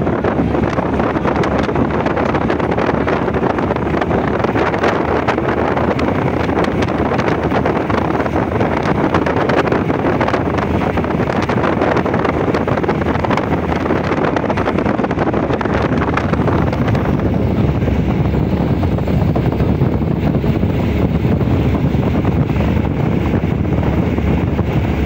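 Steady wind rush on the microphone mixed with road and engine noise from a moving vehicle travelling at speed.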